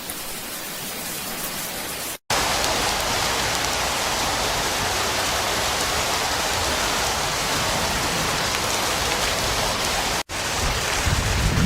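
Heavy rain pouring down, a steady hiss, over successive clips joined by two sudden cuts, about two seconds in and near the end. After the second cut wind buffets the microphone.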